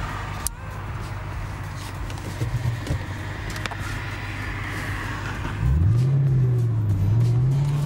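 2008 Ford Mustang GT's V8 engine running at low revs while driving, then accelerating hard about five and a half seconds in: the engine note rises sharply, dips briefly and climbs again.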